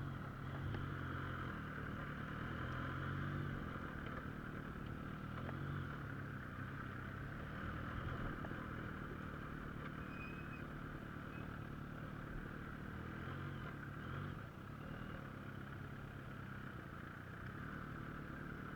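Vehicle engine running steadily at low revs, a low hum with a steady hiss above it.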